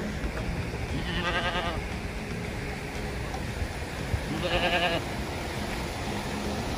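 Goats bleating in the distance, two wavering calls about three seconds apart, over a steady rushing noise.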